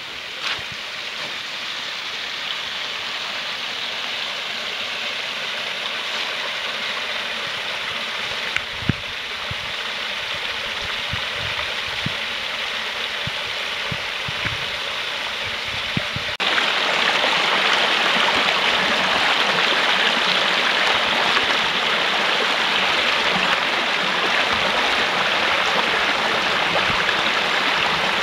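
A small rocky brook rushing over stone steps in little cascades into a pool, a steady splashing rush that grows louder and then jumps up suddenly a little past halfway. A few low thumps sound in the first half.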